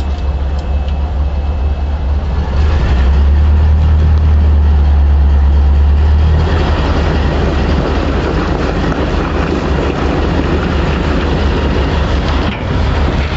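4x4 pickup truck's engine working hard in locked four-wheel drive while three of its four wheels spin on mud, straining to pull over 13,000 lb plus a trailer. The low engine drone swells a couple of seconds in, and about six seconds in it eases as a rougher, gritty spinning noise takes over.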